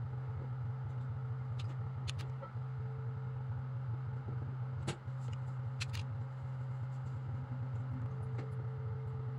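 A steady low hum with a fainter higher tone over it, broken by a few short, light clicks.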